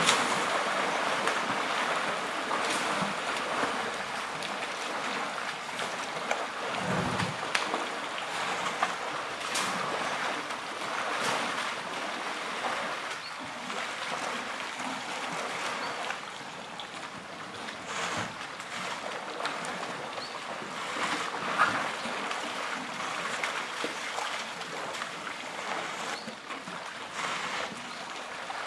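Elephants wading and drinking in a waterhole: continuous water sloshing and splashing, with many short splashes as trunks and legs strike the water.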